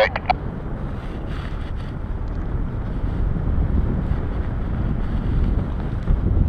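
Airflow rushing over the microphone during a paraglider flight: steady, low buffeting wind noise.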